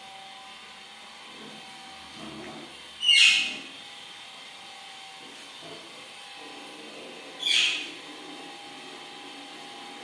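Pet parakeet giving two short, harsh screeches about four seconds apart, over a faint steady hum.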